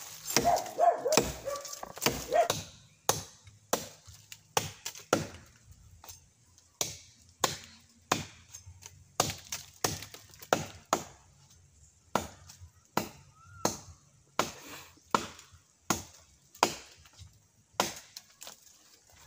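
A bolo knife chopping into ficus wood and roots: sharp, separate strikes at an irregular pace of roughly one or two a second, some in quick pairs, as the tree is cut free to be collected for bonsai.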